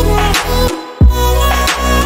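Background music with a steady beat and a deep bass hit about a second in.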